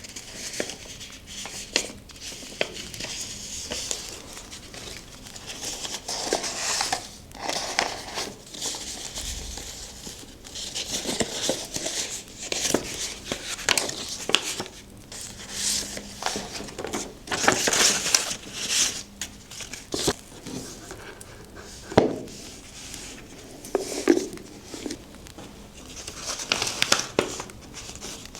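Paper being handled, rustling and crinkling in irregular bursts, with a few sharp taps or clicks, the loudest about two-thirds of the way through.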